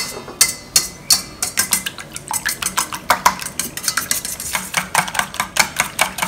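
Wire balloon whisk beating raw eggs in a stainless steel bowl, its wires clicking against the metal in a rhythm. It starts slowly and quickens to about five strokes a second after a second or so.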